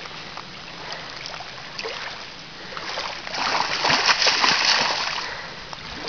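A hooked northern pike thrashing and splashing at the surface in shallow water as it is reeled in. The splashing is loudest from about three to five seconds in.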